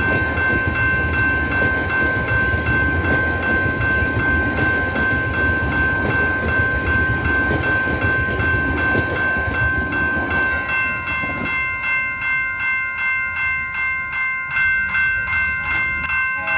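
A train rumbles past over the rails, fading after about eleven seconds. Throughout, a level-crossing warning bell rings in rapid, even strikes, about three a second.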